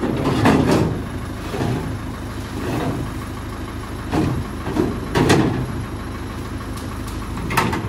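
Flatbed tow truck's engine idling steadily, with several sharp metallic knocks and clanks as its loading ramps are handled.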